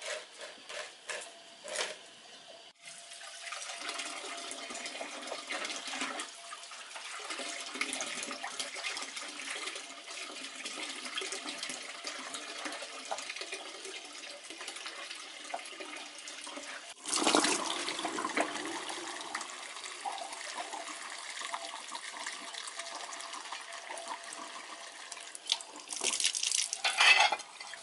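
Water running and splashing steadily, with a louder gush about 17 seconds in and another near the end.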